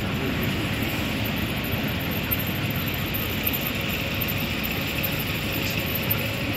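City-centre street ambience: a steady low traffic rumble with hiss and no distinct single event.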